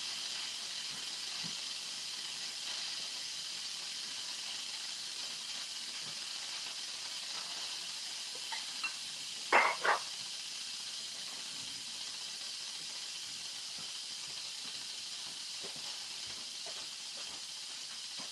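Instant Pot electric pressure cooker venting steam through its pressure-release valve in a steady hiss: a quick release of pressure after cooking, done to let the float valve drop. About halfway through come two short, sharp knocks.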